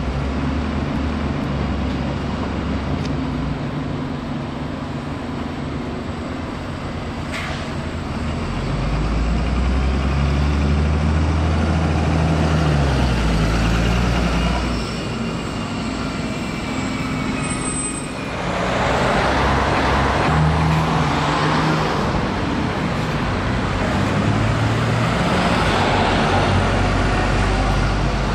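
Wright Gemini 2 DL diesel double-decker buses running in street traffic: the engine's low drone rises and steps in pitch between about 9 and 14 s as a bus pulls away and changes gear, and from about 18 s a louder rushing noise of a bus driving past takes over.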